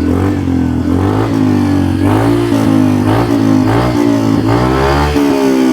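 Yamaha Mio i 125 scooter's single-cylinder engine revved and held at high RPM through a HUN V2 aftermarket exhaust with its silencer insert removed. The revs rise and dip slightly without falling back to idle.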